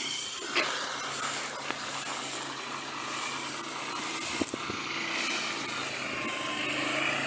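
Tractor and round baler running steadily at a distance, a low even engine hum under a rustling hiss, with a few light knocks close by.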